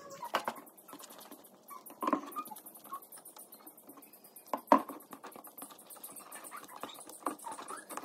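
Metal spoon stirring flour and a wet egg-and-milk mixture in a glass bowl: irregular small clicks and scrapes of the spoon against the glass, the sharpest a little under five seconds in.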